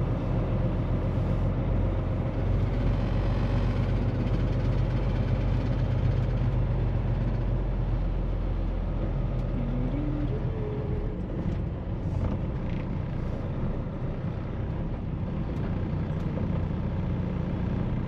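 Semi truck's diesel engine running at low speed, heard from inside the cab as the truck rolls slowly up to a fuel pump; the steady low hum eases a little about halfway through as it slows.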